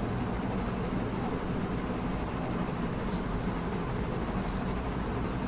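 Pen scratching on notebook paper as words and figures are written, faint under a steady low background hum.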